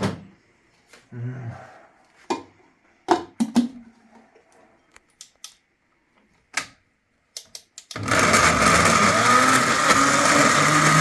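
Scattered clicks and knocks of kitchen utensils being handled. About eight seconds in, an electric blender starts and runs steadily with a whine, pureeing tomatoes.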